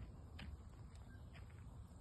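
Near-quiet, with a faint low rumble and a few soft, scattered crackles from a small wood fire burning in a steel fire ring.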